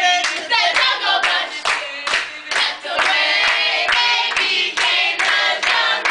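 A group of teenagers singing a cappella together while clapping their hands in a steady rhythm, about two claps a second.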